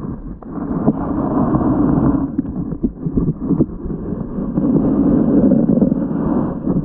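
Muffled underwater rush of water picked up by a submerged GoPro Hero 7 Black, swelling twice, with scattered small clicks and knocks.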